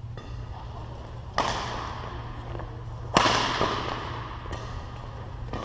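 Badminton rackets striking the shuttlecock in a doubles rally: two loud, sharp hits, about a second and a half in and again about three seconds in, each echoing in the hall, followed by a few fainter knocks. A steady low hum runs underneath.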